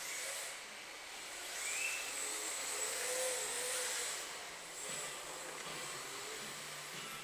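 Radio-controlled drift cars running on the track: electric motor whine that rises and falls briefly over a steady hiss.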